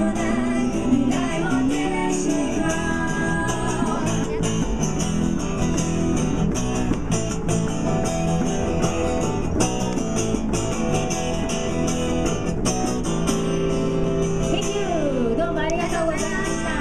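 Live amplified band playing a song: two women's voices singing into microphones, over acoustic guitar and electric bass played through small amplifiers.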